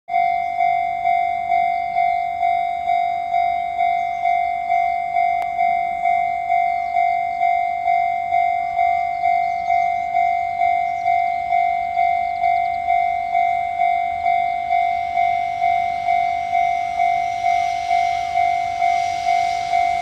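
Japanese level-crossing warning bell ringing steadily, about two dings a second. From about three-quarters of the way in, the hiss of an approaching freight train grows louder underneath.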